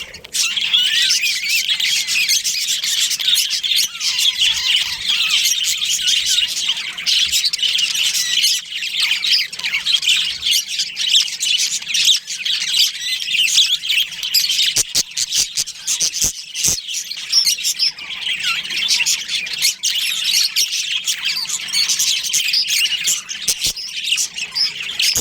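A colony of budgerigars chattering and chirping, many birds at once, in a dense unbroken stream of squawks and warbles. A few sharp clicks cut through it.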